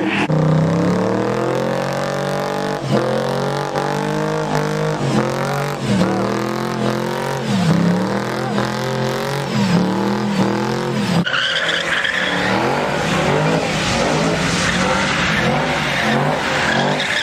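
A pickup truck doing a burnout: its engine is revved hard, rising and falling over and over as the rear tyres spin in smoke. About eleven seconds in, the sound switches to a car spinning donuts, its tyres squealing steadily over the engine.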